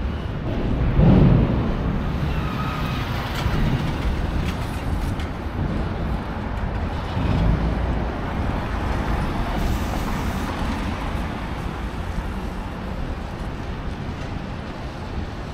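Steady city road traffic: the continuous rumble of passing cars, buses and trucks.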